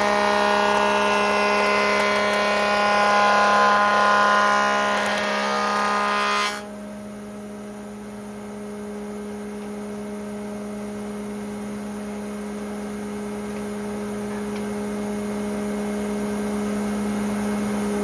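Red oak board being fed through a big stationary wood-planing machine: the cutterhead makes a loud, dense whine full of steady tones for about six and a half seconds. The cut ends abruptly, and the machine runs on unloaded with a steady hum.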